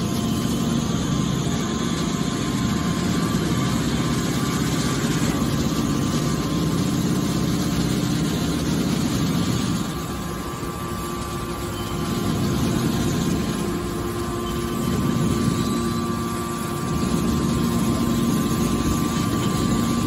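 Hydraulic metal scrap baler running: its hydraulic pump and motor hum steadily under load, the sound easing and swelling three times in the second half as the rams press and push out a bale of scrap metal.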